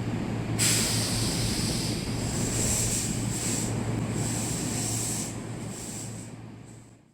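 Electric commuter train with a steady running hum. About half a second in, a sudden loud burst of compressed-air hiss, typical of the train's air brakes, goes on in waves. The sound fades away near the end.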